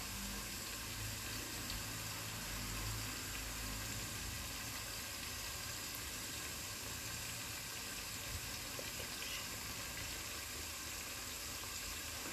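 Soffritto of spring onions, raisins and anchovies sizzling gently and steadily in olive oil in a stainless steel pot.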